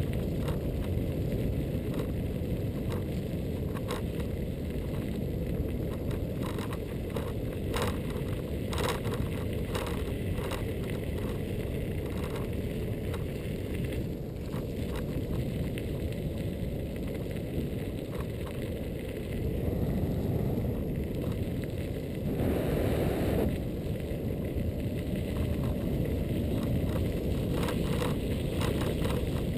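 Riding noise from a Xiaomi M365 electric scooter in motion: wind rumbling on the microphone and tyre noise from the path, with frequent small clicks and knocks from bumps. A louder rush of noise comes a little over two-thirds of the way through.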